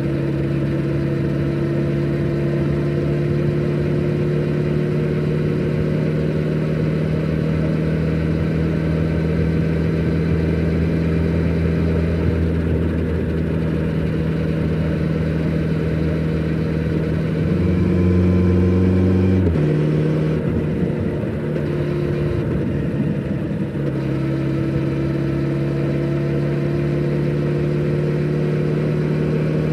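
Exhaust of a Kawasaki Z900RS's 948 cc inline-four on its stock exhaust, cruising under light throttle with the pitch slowly rising. About 18 s in it gets louder for a couple of seconds, then drops off abruptly as the throttle eases, and settles back into a steady cruise a few seconds later.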